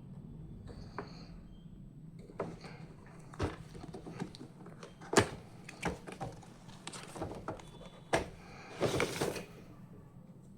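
Clicks and taps of a diecast toy car and its box being handled and unpacked, with a short rustle of packaging about nine seconds in.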